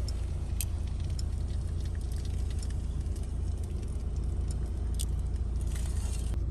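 Strong storm wind buffeting the microphone: a deep, steady rumble with a few faint clicks.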